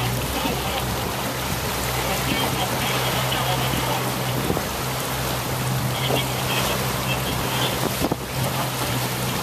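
Wind buffeting the microphone and water rushing along the hull of a Mini 650 sailing yacht under way, with a steady low hum underneath.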